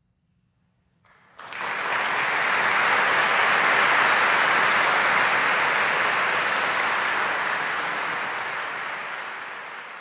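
Audience applause breaks out about a second in after a moment of silence, rises quickly and slowly begins to fade near the end.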